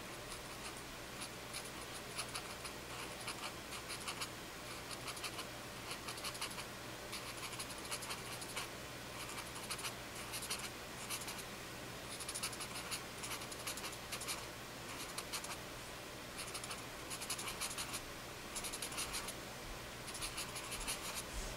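A paper blending stump (tortillon) rubbing graphite on drawing paper. It comes in short bursts of quick, scratchy back-and-forth strokes with brief pauses between them.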